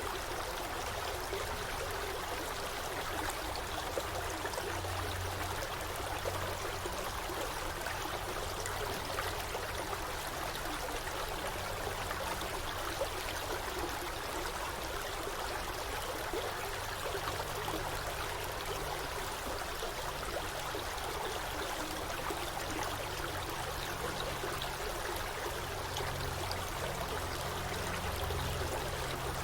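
Forest stream flowing: a steady, even rush of running water.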